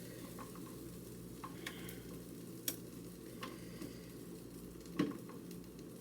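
Green beans being laid one by one onto a hot baking pan fresh from the oven: scattered light clicks and taps over a faint, steady sizzle.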